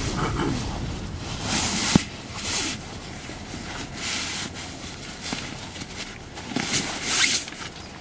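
Nylon camping gear rustling and swishing in several irregular bursts as a rolled sleeping pad is handled and a stuff sack is shaken out. A sharp knock about two seconds in is the loudest sound.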